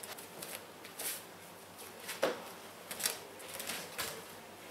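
Soft rustling and shuffling of cotton martial-arts uniforms and bare feet on the training mats, with a few short knocks; the loudest comes about two seconds in.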